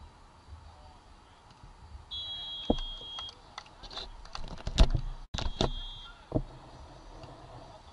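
A referee's whistle gives a steady blast about a second long, then a shorter blast of about half a second after a few sharp knocks; the loudest knock comes just before the second blast. The second blast comes as a player stands ready at the baseline, the whistle that signals the serve.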